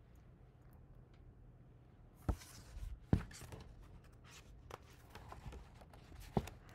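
A picture book being handled and lowered: paper rustling with a sharp knock a little over two seconds in, another just after three seconds, and one more near the end, over a faint steady room hum.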